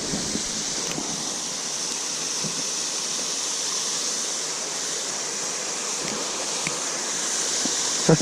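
Steady rush of water pouring over a river waterfall.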